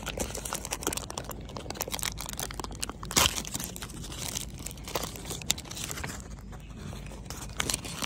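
A cardboard medicine box of vials being handled and opened, with irregular rustling and crinkling of card and packaging and a sharper crackle about three seconds in.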